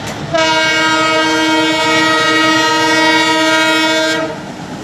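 WDM-3D diesel locomotive's horn sounding one long, steady blast of several tones together, lasting about four seconds. It starts a moment in and cuts off near the end, over the running noise of the train.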